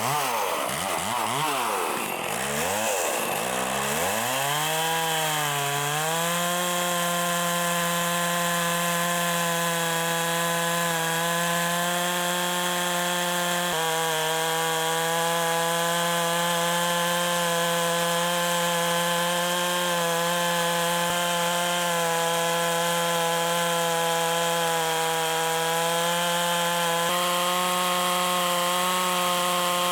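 Small petrol engine of a yard power tool running; its pitch swings down and up several times in the first few seconds, then it holds one steady, high running note.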